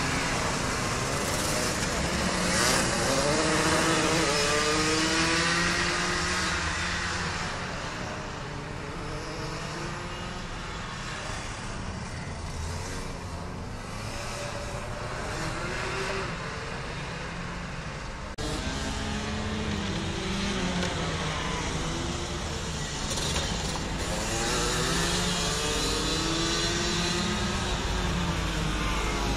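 Several racing kart engines running around a circuit, their pitch repeatedly rising and falling as the karts accelerate and slow for corners. The sound changes abruptly about two-thirds of the way through.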